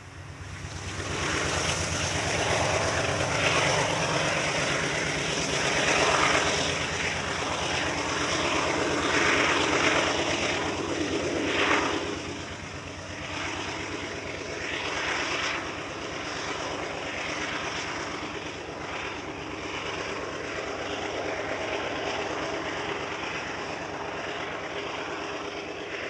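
Diesel freight locomotives running with a steady, low engine drone. It builds up in the first couple of seconds, is loudest for the first dozen seconds, then settles a little lower.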